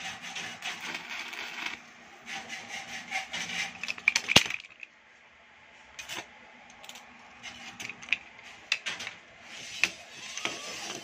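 Welding arc from a repaired inverter welding machine crackling in spurts at a turned-down current setting. Lighter metal clicks come between the spurts, with a sharp tap about four seconds in, over a low steady hum.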